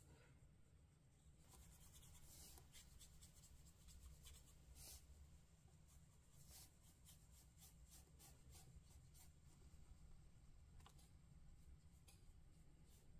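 Very faint scratching of a water brush pen stroked over watercolour paper, a string of light brush strokes that blend watercolour-pencil hatching with water.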